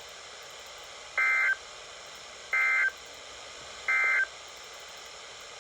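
Emergency Alert System end-of-message code on NOAA Weather Radio: three short bursts of SAME digital data tones, each about a third of a second long and evenly spaced about 1.3 seconds apart, over a faint radio hiss. The bursts mark the end of the alert broadcast.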